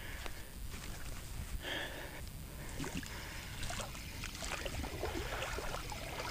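Water sloshing and splashing irregularly around a person's legs as they wade into a shallow pond.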